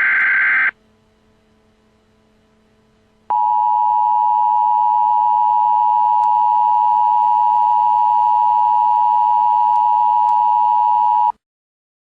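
Emergency Alert System tones: a burst of screeching digital header data ends within the first second, then after a short pause the steady two-tone EAS attention signal sounds for about eight seconds and cuts off abruptly.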